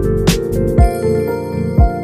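Background music with a beat over sustained tones. About a second in, the high percussion drops out, leaving the tones and a bass drum.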